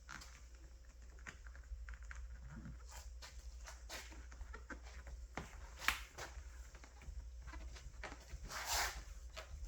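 Handling noises from fitting a stick-on plastic window visor: scattered light clicks and taps, a sharper click about six seconds in, and a short rustle near the end, over a steady low hum.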